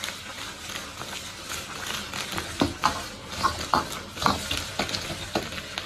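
Pork spine bones frying in a wok over a gas flame, a steady sizzle broken by irregular knocks and scrapes as a metal ladle stirs and the bones are tossed against the pan. The bones are being seared in oil with scallion and ginger before stewing.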